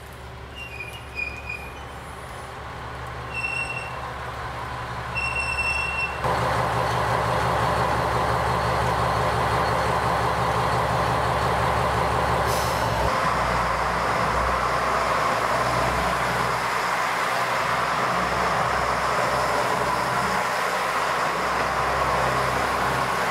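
KiHa 101 diesel railcar: a quieter start with a few short high tones, then, about six seconds in, the railcar's diesel engine running loudly close by. About halfway there is a sharp click and the engine note changes as the railcar starts off and moves away past the platform.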